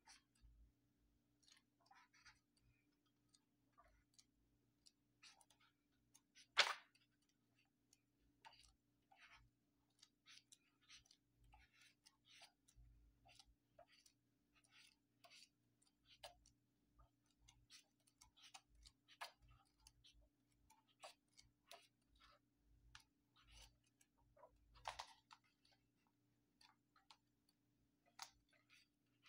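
Pages of a book being turned by hand: faint, irregular paper rustles and flicks, with a sharper paper snap about seven seconds in and another later on.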